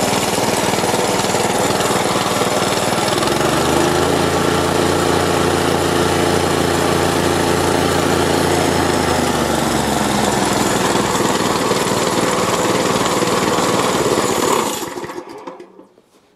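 Plate compactor's single-cylinder petrol engine, a Honda GX160 copy, running steadily now that a new spark plug and plug cap are fitted. It is revved up about three seconds in, eased back down around ten seconds, and cuts out near the end, running down to silence.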